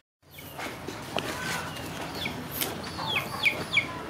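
Outdoor background with a bird calling: a few short chirps that each fall in pitch, three in quick succession in the second half. There is a single light knock about a second in.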